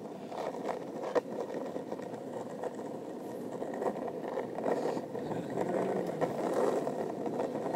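Skateboard wheels rolling fast on asphalt: a steady rumble that grows slowly louder as the board gathers speed downhill, with a few short clicks from bumps in the road.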